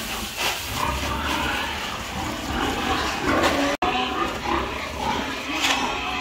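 Farm animals calling over the rustle of grain being poured and a shovel scraping through feed on concrete. The sound cuts out for an instant just before four seconds in.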